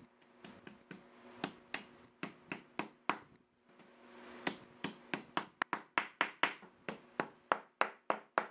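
Wooden mallet tapping a small chisel into an oak log slice: sharp wooden knocks, uneven and spaced out at first, then a steady run of about three a second from about halfway.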